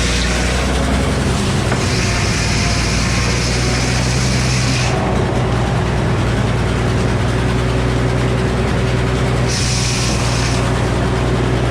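Old Frick sawmill's power unit running steadily under a loud hiss. The hiss cuts off about five seconds in and returns briefly near ten seconds.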